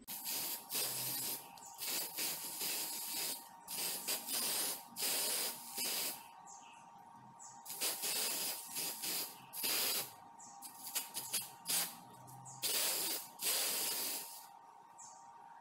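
Aerosol spray-paint can hissing in a series of short bursts, about a dozen, with a brief pause near the middle; the spraying stops shortly before the end.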